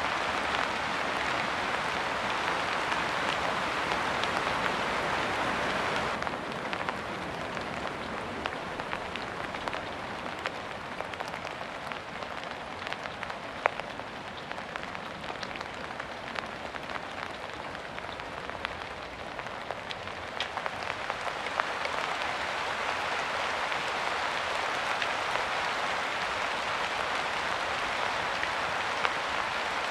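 Steady rain falling. About six seconds in it abruptly turns lighter, with separate drops heard distinctly, then swells back to the heavier fall around twenty seconds in.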